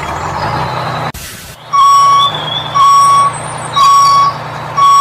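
Truck reversing alarm sound effect: four evenly spaced beeps, about one a second, over a steady low engine hum. A short burst of hiss comes just before the first beep.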